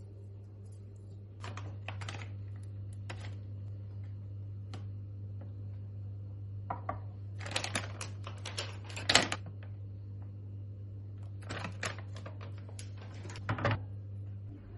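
Light clicks and rustling from handling sewing materials by hand, in several short clusters with the loudest about nine seconds in, over a steady low hum.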